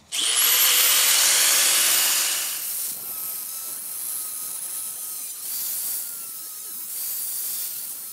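Angle grinder with a thin cut-off wheel spinning up and cutting through a chrome-plated metal mug handle. It is loudest for the first two or three seconds, then settles into a steadier, quieter cut with a thin whine.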